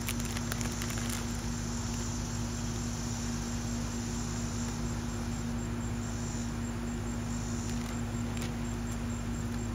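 Steady insect chirping, crickets or similar, over a constant low hum.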